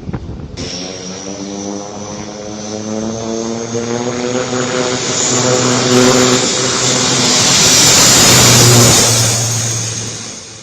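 Military aircraft passing low on the expressway airstrip, its engine note growing steadily louder with a high whine over a rumbling tone, peaking near the end and then fading away.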